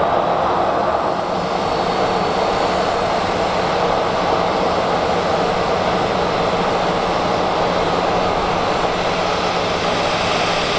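Boeing 737-800's CFM56-7B jet engines running at low taxi thrust as the airliner taxis slowly: a steady jet whine and rush that stays even throughout.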